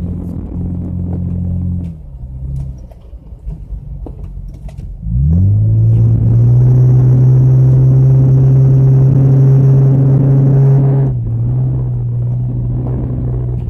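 Nissan Pathfinder's engine running steadily, then easing off about two seconds in. About five seconds in the revs climb steeply under hard acceleration and hold high and loud for about six seconds before backing off.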